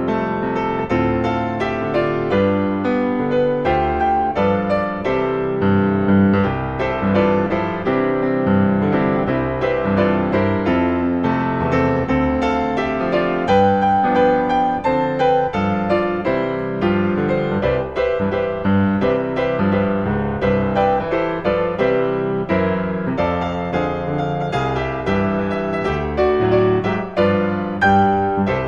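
Background piano music, many notes played at a steady pace.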